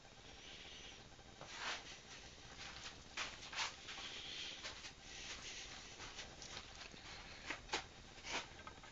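Faint handling noise from a handheld camera: soft rustling and several short sharp clicks and taps over a low steady hiss.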